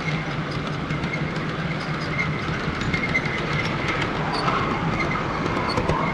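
Model train running along its track: wheels clicking over the rail joints over a steady low hum.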